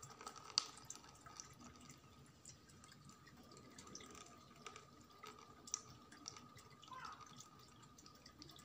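Faint dripping and trickling of blended lime juice as it is poured from a blender jug and strains through a cloth-lined plastic strainer, with a few light ticks.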